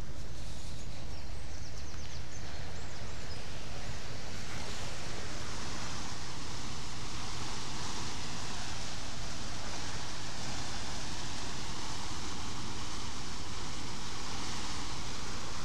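Steady rushing and churning of water stirred up by a vessel's propeller wash as the boat holds against the pier, over a steady low rumble from the vessel running.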